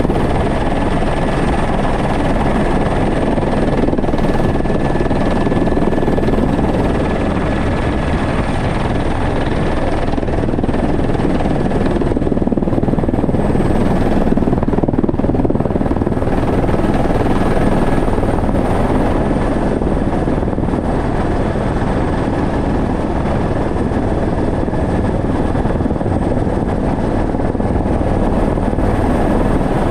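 Helicopter in flight heard from inside the cabin: loud, steady rotor and engine noise with a thin, steady high whine over it.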